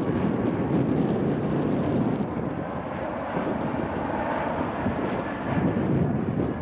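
Embraer E-Jet regional jet's turbofan engines running on final approach with gear down, a steady jet rumble mixed with wind buffeting the microphone.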